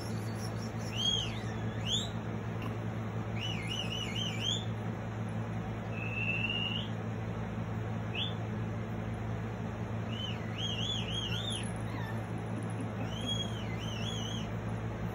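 Bird song played from a phone speaker: short groups of quick, wavering whistled notes every second or two, over a steady low hum.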